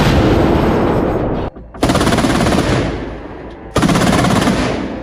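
ZU-23 twin 23 mm anti-aircraft autocannon firing long bursts of rapid automatic fire, three bursts in all, with brief breaks about a second and a half in and near four seconds.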